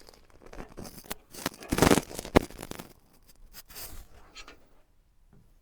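Scraping and rubbing of PC parts being handled and pushed into place, with a sharp click about two and a half seconds in.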